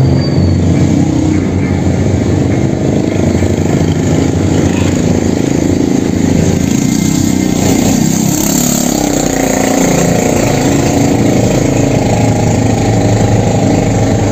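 Motor vehicle engines running close by, loud and steady, with the engine pitch bending around the middle.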